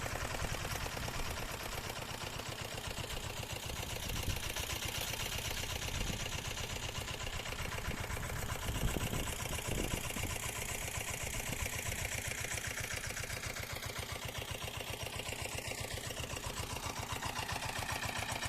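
Single-cylinder engine of a Zubr walk-behind tractor running steadily with a fast, even pulse while rotary tilling, with a few louder knocks about halfway through.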